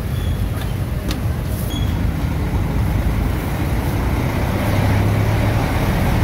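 Busy road traffic running close by: motorbike and truck engines in a steady rumble. A deeper engine note swells about five seconds in as a large truck passes.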